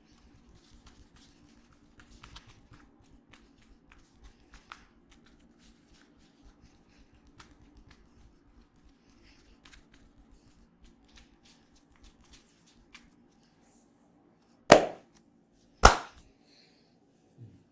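Hands working through a head and neck massage: faint rubbing and small ticks, then two loud sharp cracks about a second apart near the end.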